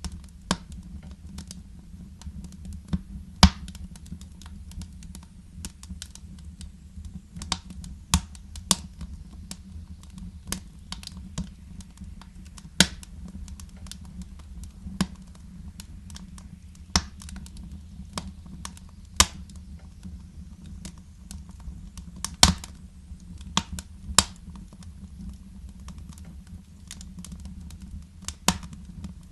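Wood fire crackling, with irregular sharp pops and snaps over a steady low rumble of the flames. The loudest pops come about three and a half seconds in and again about twenty-two seconds in.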